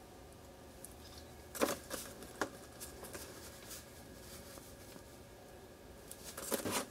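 Close handling sounds from fingers working foam-tape-wrapped 6mm motors into a carbon-fibre micro quadcopter frame: a cluster of scratchy clicks and rubs about one and a half seconds in, a few lighter ticks after it, and another scratchy cluster near the end.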